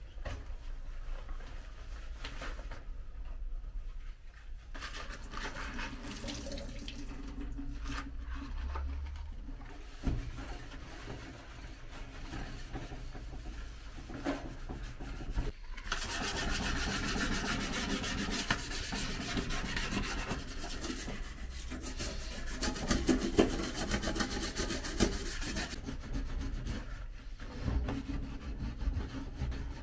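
Tap water running into a sink, with rubbing and scrubbing; the water runs hardest for about ten seconds from just past halfway.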